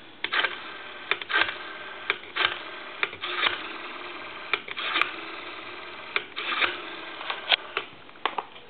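Rotary dial of a Western Electric desk telephone being wound and let spin back for several digits in a row. Each return gives a quick run of clicks.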